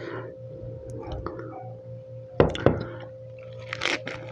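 Crisp fresh lettuce crunching close to the microphone as a lettuce-wrapped bite of pork adobo is handled and bitten: two sharp crunches a little past halfway, then more crunching near the end. A faint steady hum runs underneath.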